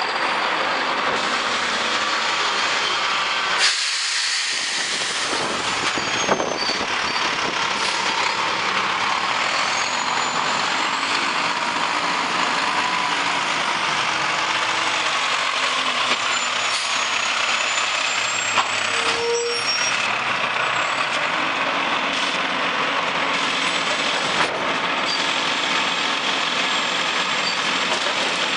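Mack LEU refuse truck running close by: a steady diesel engine noise with a few short sharp clicks and hisses, typical of air brakes on a stop-and-go collection truck.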